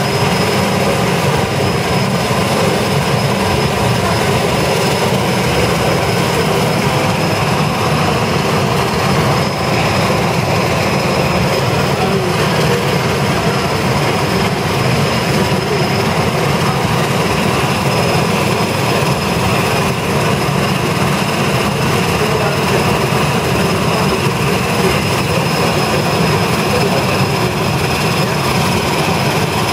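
Turbine engine of a PAC 750XL jump plane running on the ground: a steady high whine over a loud, even rush of propeller and exhaust noise.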